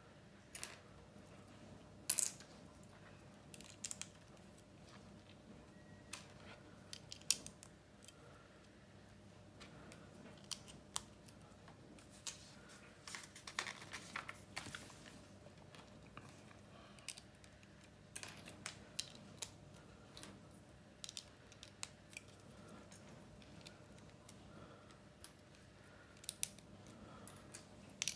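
Plastic LEGO bricks clicking and snapping together as they are pressed on and fitted by hand, in scattered, irregular sharp clicks. A page of the paper instruction booklet is turned about halfway through.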